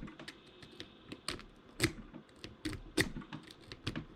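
Snake rake clicking and scraping over the pin tumblers of a Master Lock No. 3 padlock held under tension: irregular sharp clicks, a few a second, with fainter ticks between.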